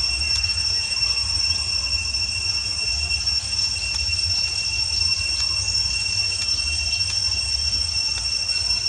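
Cicadas droning in one steady high-pitched whine over a low rumble.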